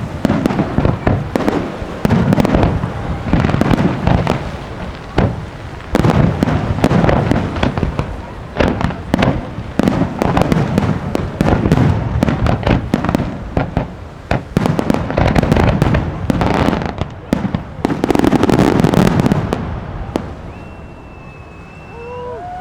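Rapid barrage of aerial firework shells launching and bursting, dense overlapping booms and cracks, dying down about two seconds before the end.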